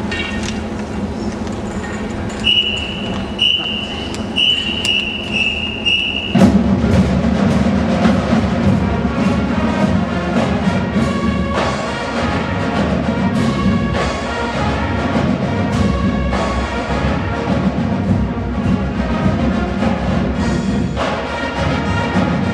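Marching band with drumline playing: a held chord with five short, high notes over it, then about six seconds in the full band and drums come in loud and keep going.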